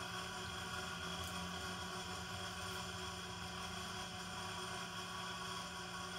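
Steady mechanical hum of a running electric motor, holding several constant tones without change.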